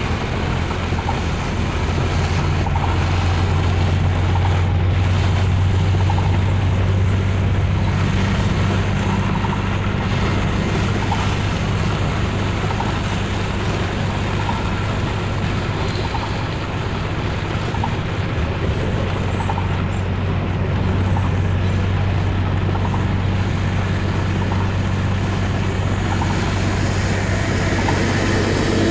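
Steady low drone of a vehicle's engine and tyres, heard from inside the cab while driving in heavy rain, with an even hiss of rain and road spray over it.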